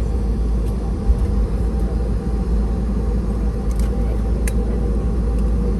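Steady low rumble inside a Boeing 717 airliner cabin, with a couple of faint clicks about four seconds in.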